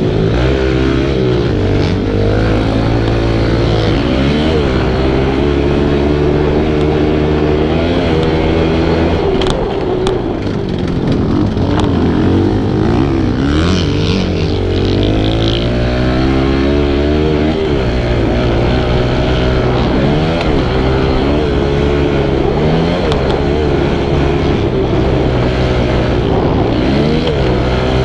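Kawasaki KLX110's small air-cooled four-stroke single-cylinder engine being ridden hard on a dirt track, revving up and dropping back over and over as the throttle opens and closes and the gears change.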